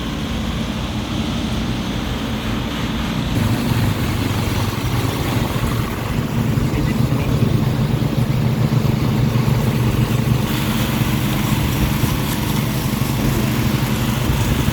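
An engine-driven machine running steadily with a low drone. Its tone shifts about four seconds in, and more hiss joins it from about ten seconds.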